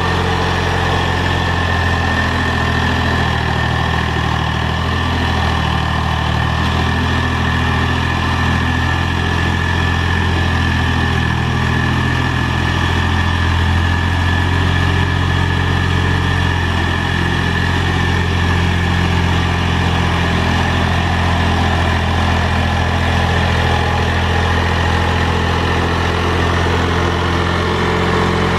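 Mahindra 3525 tractor's three-cylinder diesel engine running steadily.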